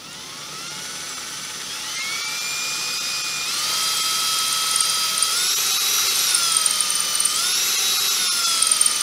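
Cordless drill with a quarter-inch bit boring out a stud hole in a 2JZ oil pan, the tapping hole for an M8×1.25 thread. The motor's whine climbs in steps as the trigger is squeezed harder, dips briefly past the middle, rises again and eases down near the end.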